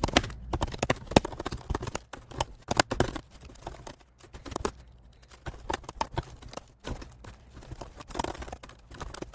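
Typing on a computer keyboard: a fast, irregular run of keystroke clicks, thinning out briefly about four to five seconds in.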